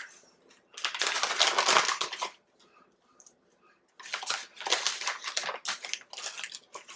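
Plastic vacuum-sealer bag crinkling as it is pulled open and a bacon-wrapped filet is slid inside. The rustling comes in two stretches: a short one about a second in, then a longer one from about the middle on.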